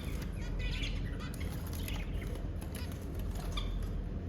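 Small pet birds giving scattered short chirps and squawks over a steady low background hum.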